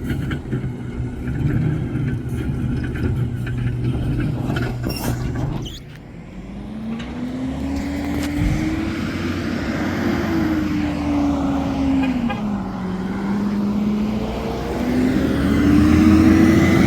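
Road vehicle engine running: a steady low hum, then, after a short break about six seconds in, an engine note that rises, drops and rises again as it revs.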